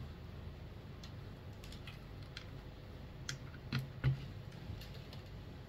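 Scattered light clicks and taps, with two louder knocks about four seconds in, over a steady low hum.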